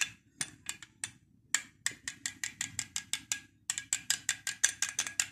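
Metal spoon clinking against a glass bowl as it whisks a spoonful of yogurt with warm milk, each stroke a sharp click with a faint glassy ring. The clicks are sparse at first, then come quickly, about five or six a second, from about a second and a half in.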